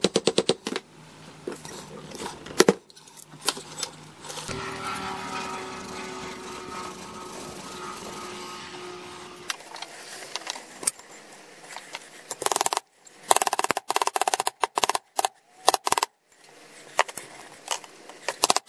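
Rapid runs of sharp metal clicks and taps with a single louder knock, as an ABS wheel-speed sensor is pried out of a front wheel hub bearing assembly and a new sensor is pressed into place. A steadier stretch of noise sits in the middle.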